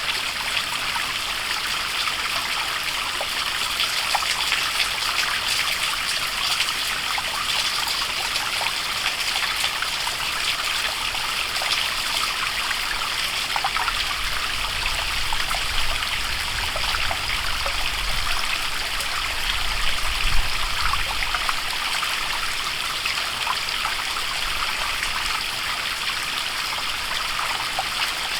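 Small waterfall: a steady rush of falling water with fine splashing and trickling. About halfway through, a low rumble joins it for several seconds.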